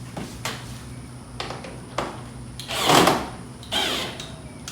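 A hand ratchet and screws being handled: a few sharp clicks and knocks, a louder scraping rustle about three seconds in, and a shorter one near the end.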